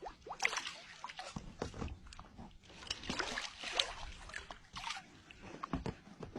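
Water splashing and sloshing in short, irregular splashes, the sound of a large wels catfish being handled in shallow water after the catch.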